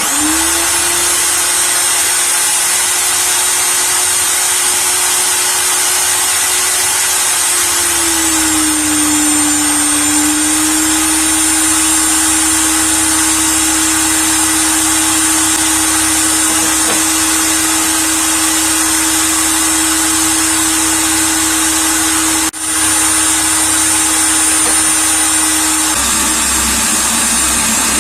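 Electric drill motor running steadily at high speed with a whine. About eight seconds in its pitch sags as it slows under load, then settles a little lower than before.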